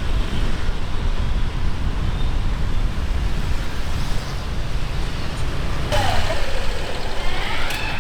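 Steady road-traffic rumble of motorbikes on a busy city street. About six seconds in, an engine's pitch dips and then climbs as it revs up again.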